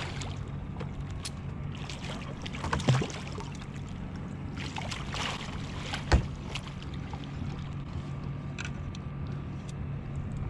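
A boat motor hums steadily. Short noisy rustles come about two and five seconds in, with a thump about three seconds in and a sharper knock about six seconds in.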